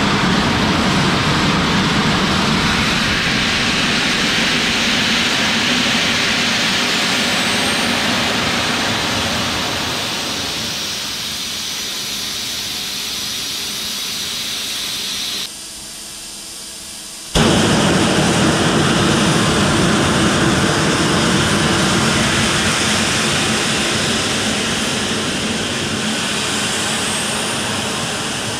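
Cold flow of the Eridium nitrous oxide/ethanol liquid rocket engine: propellant rushing out through the injector with a loud, steady hiss. The noise drops off abruptly about fifteen seconds in and comes back just as suddenly two seconds later.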